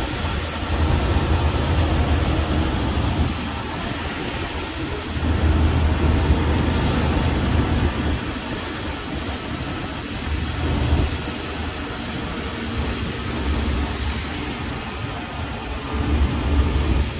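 Open-sided tour tram running slowly, heard from a passenger seat: a steady vehicle rumble with a low throb that swells and eases several times.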